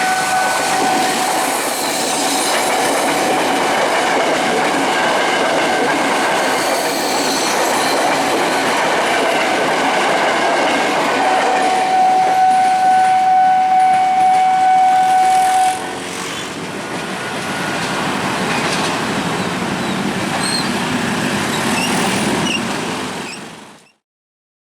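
A train passing fast over a level crossing on a curve, its wheels clacking and squealing, while a single-pitched train horn sounds the long warning blast: one blast ends just after the start and a second, about four seconds long, comes around the middle. The sound fades out near the end.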